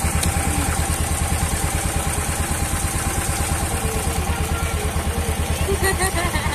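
Small inboard engine of an outrigger bangka running steadily under way, a fast, even chugging beat, with a steady hiss of wind and water over it.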